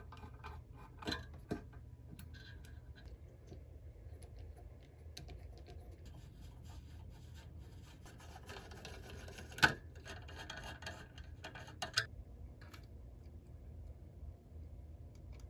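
Screwdriver turning out the screws that hold an amplifier circuit board to its heatsink: metal scraping and small clicks, with two sharp clicks about a second in, a stretch of scraping that ends in a loud click near ten seconds, and another click about two seconds later.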